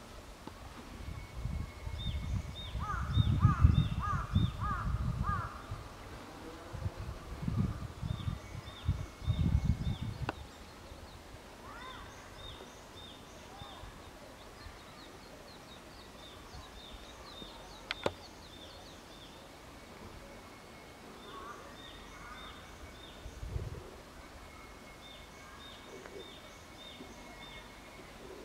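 Wild birdsong: a small songbird repeats a short run of quick, high, descending notes every few seconds, while a crow caws about five times a few seconds in. A louder low rumbling noise comes and goes through the first ten seconds.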